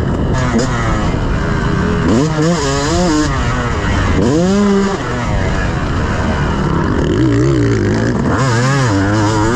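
Yamaha YZ250's single-cylinder two-stroke engine under load, revving up and falling back again several times as the throttle is worked.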